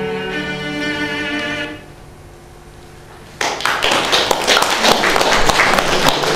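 Bowed-string music holds its last notes and stops a little under two seconds in. After a brief hush, audience applause breaks out about three and a half seconds in and carries on.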